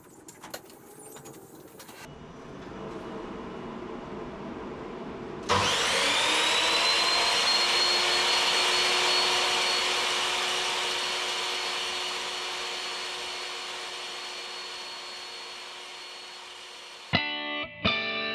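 A portable jobsite table saw's motor is switched on about five seconds in. It spins up with a briefly rising whine and then runs steadily as it slowly fades. Electric guitar music comes in near the end.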